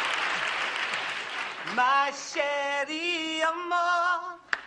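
Studio audience applause dying away, then male voices start singing unaccompanied in long held notes that step up and down in pitch.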